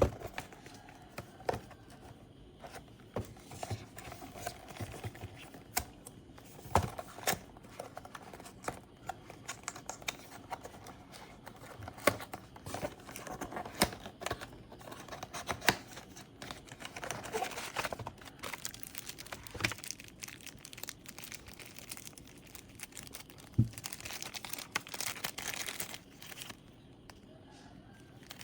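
Product packaging being handled and opened: plastic and cardboard crinkling and tearing, with scattered sharp clicks and taps.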